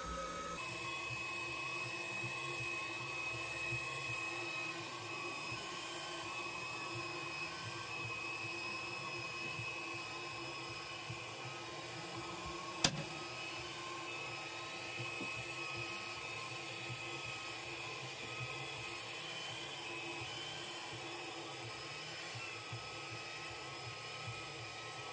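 Hutt DDC55 window-cleaning robot running on the glass, its suction fan motor giving a steady whine, with one sharp click about halfway through.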